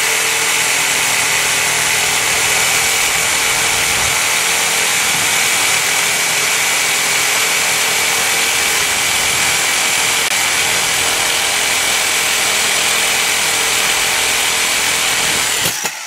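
Reciprocating saw running steadily as its blade cuts down the gap between a window frame and the surrounding brick to free an old window, then stopping shortly before the end.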